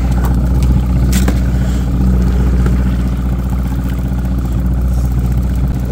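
Evinrude 115 two-stroke outboard motor running steadily at slow trolling speed, with a single sharp click about a second in.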